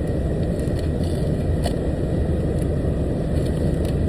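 Steady low engine rumble heard inside a truck cab, with a couple of faint ticks.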